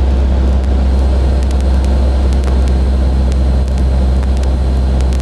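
Steady drone of a Cessna 152's four-cylinder Lycoming engine and propeller heard inside the cockpit, with faint scattered clicks.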